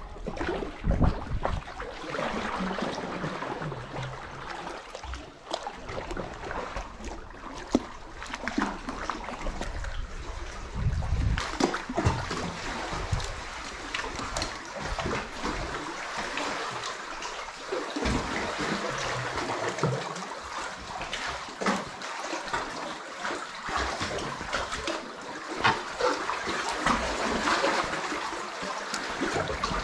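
Small waves lapping and sloshing against sandstone sea-cave rock around a kayak, with frequent sharp slaps of water.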